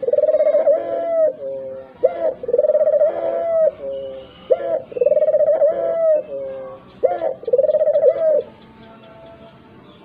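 Turtle dove cooing in a repeated phrase, about four times: a short note followed by a long, rolling coo that drops off at the end. The calling stops shortly before the end.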